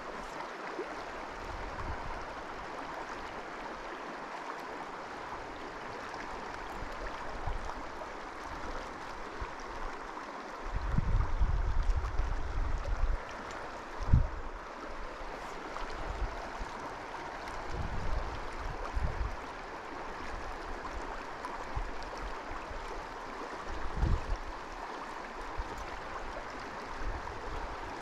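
River water flowing steadily. A few low rumbles on the microphone break in, the longest about eleven seconds in.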